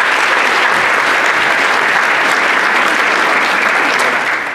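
Congregation applauding steadily in a large church sanctuary.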